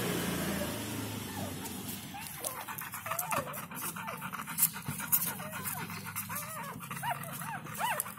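Newborn puppies squeaking and whimpering: many short, high cries that rise and fall, coming more often toward the end, with a dog panting early on.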